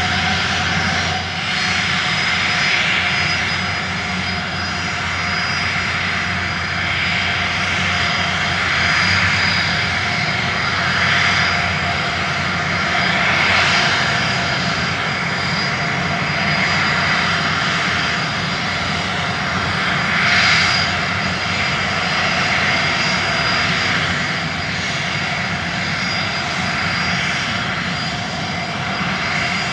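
A small motor running steadily under a rush of wind noise that swells and eases every few seconds.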